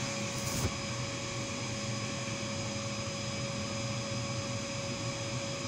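A steady mechanical hum with hiss: a fixed mid-pitched tone over a low drone. There is a brief handling rustle or knock about half a second in.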